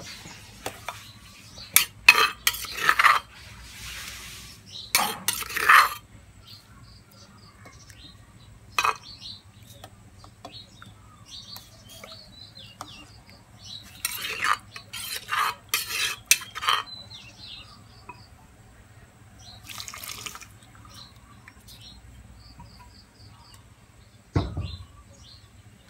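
A metal ladle clanking and scraping against an aluminium cooking pot as curry paste is stirred in, with water splashing as it is poured in from a clay pot. There is a single low thump near the end.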